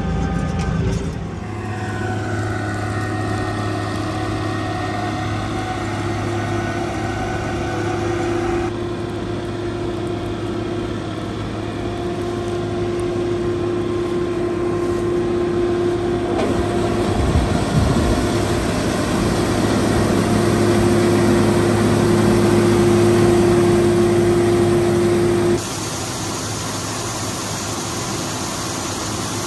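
A Fiatagri 3350 combine harvester and a tractor running steadily, with a few brief knocks about seventeen seconds in. In the last few seconds the sound shifts to a steady rushing hiss of grain pouring from the combine's unloading auger into a trailer.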